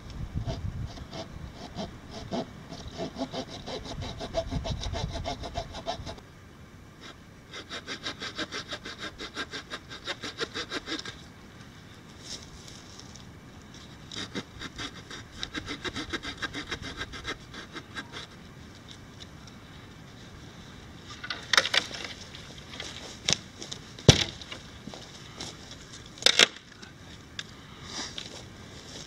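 Small folding saw blade of a Swiss Army Knife Camper cutting through a dry deadfall branch: quick back-and-forth strokes in three runs with short pauses between them. Several loud, sharp cracks and knocks of wood come near the end.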